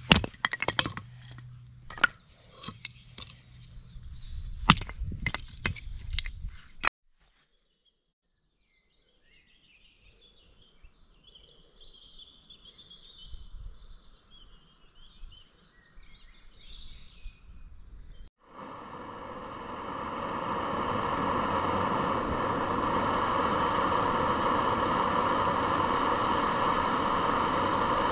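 A hatchet striking and splitting a wooden log into kindling, a quick series of sharp cracks over the first seven seconds. After a brief silence, faint birdsong, and then from about two-thirds of the way in the steady hiss of a small gas camping stove with water boiling in its pot, heating a boil-in-bag ration pouch.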